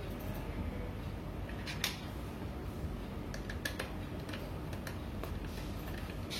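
Scattered light clicks and taps from an ASUS PN62 mini PC's case and parts being handled and locked back together after a RAM upgrade, the sharpest about two seconds in and a quick run of them a little later, over a steady low hum.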